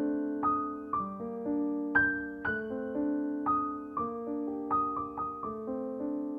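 Background piano music: a gentle melody of single struck notes, about two a second, each fading away over held lower notes.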